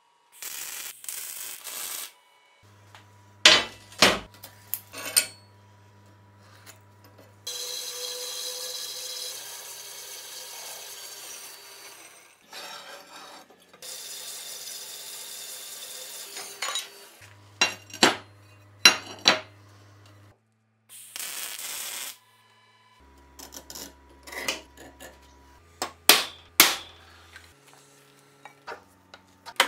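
Metal shop work sounds in turn: a short crackling burst of MIG welding, sharp clanks and knocks of steel parts, and stretches of steady cutting noise as a coolant-fed band saw cuts steel flat bar, with steel clanking into a milling-machine vise near the end.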